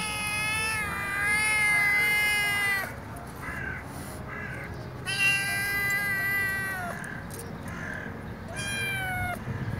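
Sick stray kitten meowing three times: two long drawn-out calls and a shorter one near the end, each dropping in pitch as it ends. The kitten has a cold, and its rescuer says a wheeze could be heard when it breathed and meowed.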